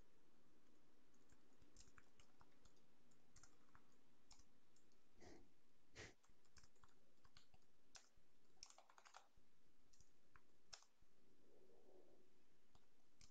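Faint computer keyboard typing: soft, irregularly spaced key clicks over quiet room tone.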